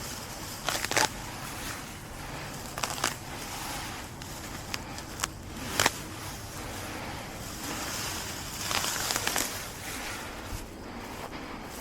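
Grass and weeds being pulled up by hand: short crackling snaps and rustles of stems and roots tearing, a second or two apart.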